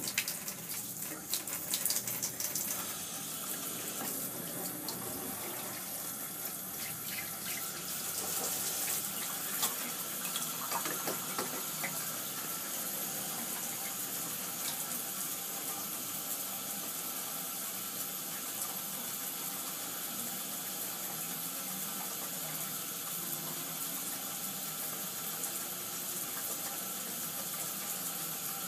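Bath tap running, a steady stream of water pouring into the tub, with a few brief knocks in the first couple of seconds.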